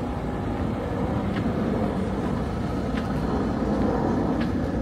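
Steady low engine rumble with a few faint ticks.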